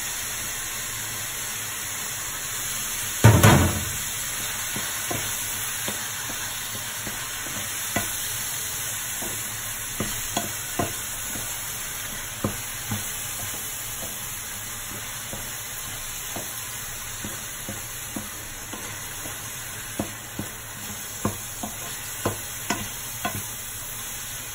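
Ground pork and courgette flesh sizzling steadily in a frying pan while a wooden spoon stirs and scrapes through it, knocking lightly against the pan again and again. There is one loud thump about three seconds in.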